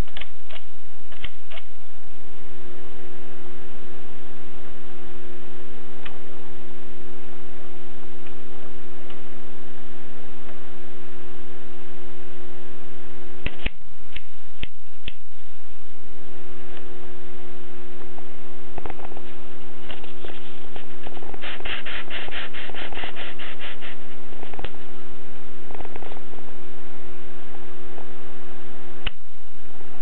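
AEG Mignon index typewriter having its platen turned by the knob. Scattered single clicks, then a fast run of ratcheting clicks about two-thirds of the way in, all over a steady hum.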